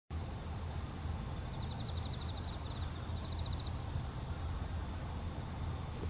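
Outdoor ambience: a steady low rumble, with a faint, high, rapidly pulsing trill heard twice near the middle.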